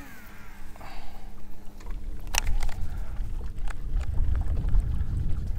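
Low wind and water rumble around a small fishing boat, with a faint steady hum and a few scattered sharp clicks, the loudest about two and a half seconds in. The rumble grows louder near the end.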